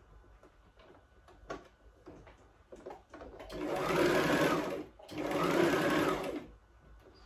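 Domestic electric sewing machine stitching in two short runs of about a second and a half each, its motor rising and falling in speed with each press of the pedal. A few faint clicks come before the first run.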